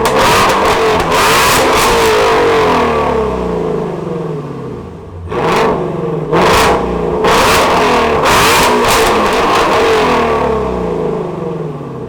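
A Shelby Mustang's 5.2-litre V8 is revved while parked, through its performance exhaust. There are several sharp throttle blips, each followed by the revs falling back.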